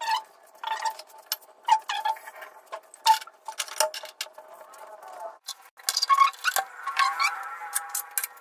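Stainless-steel kitchen utensils clinking and clattering as they are handled: a string of sharp knocks, each with a short metallic ring, busiest near the end.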